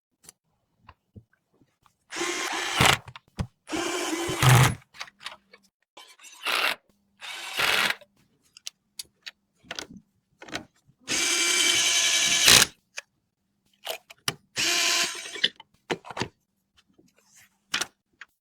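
Electric screwdriver driving screws in a run of short bursts, about six in all, each half a second to a second and a half long, with small clicks and taps between them.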